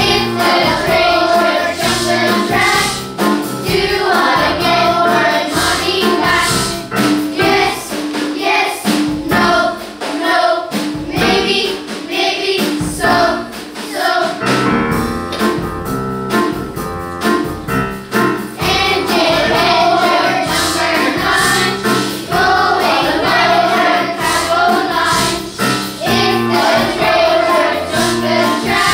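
Children's choir singing a song in unison, with instrumental accompaniment and a steady beat underneath.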